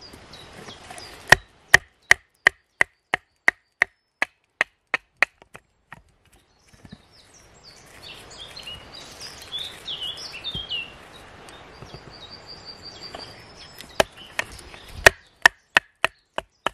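A knife being batoned down through a small birch log with a wooden baton: sharp taps of wood on the blade's spine, about three a second, each with a short ring. The strikes stop for several seconds in the middle and start again near the end.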